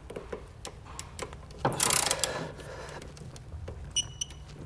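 Ratcheting clicks of a digital torque wrench tightening a fifth-wheel rail bolt, with a louder rasping stretch about two seconds in. Near the end come a few quick, high beeps from the wrench, signalling that the set torque has been reached.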